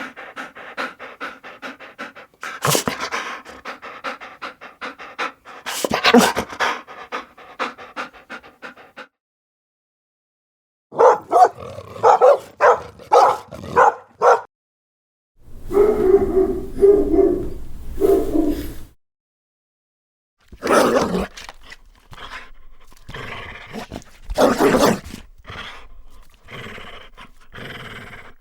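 A run of separate dog clips: dogs making short repeated sounds, broken by three brief gaps of silence where one clip cuts to the next.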